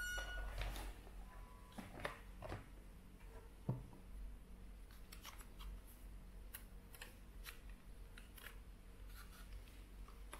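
Stiff clear plastic clamshell packaging handled and pried open by hand: a scattered string of light crackles and clicks, with one sharper knock about four seconds in.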